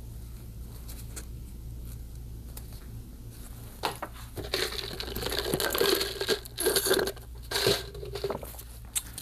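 A crinkling, tearing sound starts about four seconds in and comes in uneven bursts for a few seconds. A steady low hum lies under it throughout.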